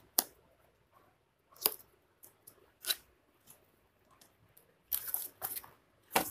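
Cardboard laptop box being handled and opened: scattered sharp scrapes and clicks of cardboard, with a quick cluster of them about five seconds in as the tuck-in flap is worked loose and the lid is lifted.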